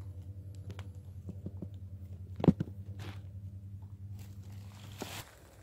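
Hands picking small oyster mushrooms off a stump among dry twigs: scattered faint crackles and one sharp snap about two and a half seconds in, over a steady low hum that stops near the end.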